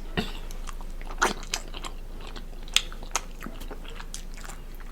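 Close-miked mouth sounds of eating seafood: chewing, with a few short crunches and clicks scattered through.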